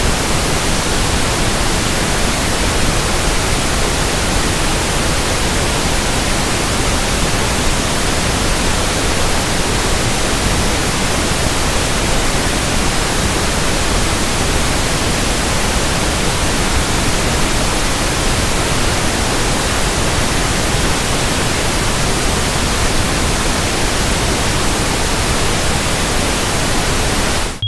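Pink noise test signal for running in a speaker: a loud, steady, even hiss across the whole range, cutting off right at the end.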